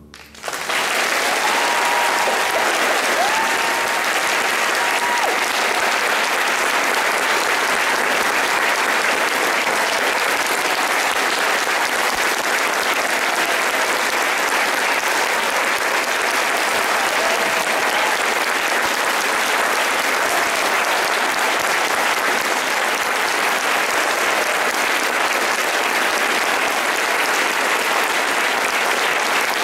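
Concert audience applauding steadily at the end of an orchestral piece. The applause breaks out all at once and holds at an even level.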